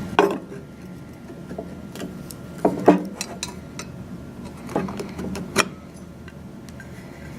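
Parts of a dish antenna's mount knocking and clicking as they are handled and fitted together: a handful of separate sharp knocks, the loudest about three seconds in.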